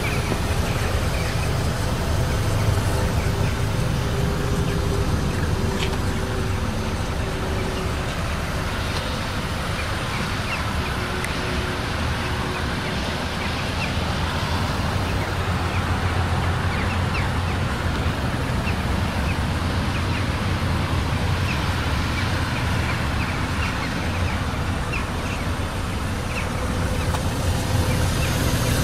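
The 2015 Ford Mondeo's 2.0-litre naturally aspirated inline-four idling steadily, a low even hum.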